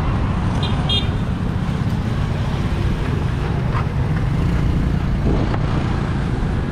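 Road traffic noise: a steady low rumble of passing vehicles, with a brief high-pitched sound about a second in.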